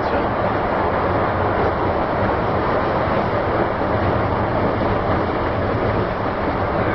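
Wuppertal Schwebebahn suspended monorail car running along its overhead track: a steady running noise with a low hum.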